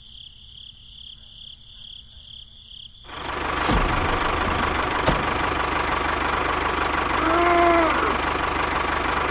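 A faint high tone pulsing about three times a second, then from about three seconds in a tractor engine running steadily and loudly. A short rising-and-falling tone sounds near the end.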